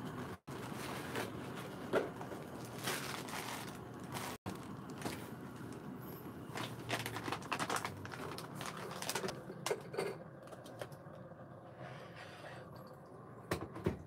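Tabletop handling noises: a Kalita Wave 185 paper filter rustling as it is fitted, with scattered light clicks and knocks of brewing gear being set in place. The sound drops out for an instant twice in the first few seconds.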